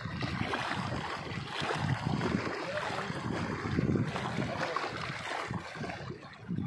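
Wind buffeting the microphone over small waves lapping against a stony lake shore.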